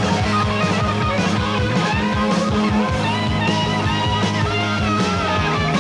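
Hard rock band playing live: electric guitar lead lines bending over bass and a steady, driving drum beat.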